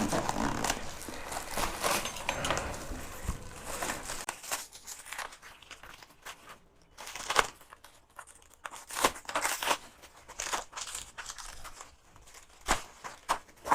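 Hard foam packaging being torn and crinkled open: steady rustling for the first few seconds, then a run of sharp crackles and snaps as it is pulled apart.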